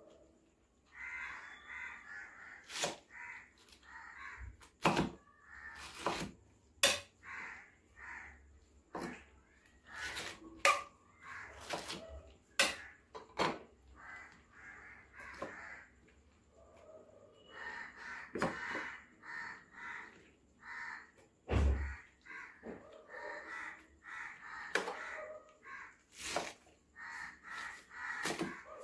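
Large kitchen knife chopping pineapple on a wooden cutting board: sharp knocks at irregular intervals, a loud one about 22 s in. Runs of short, repeated calls sound behind the chopping.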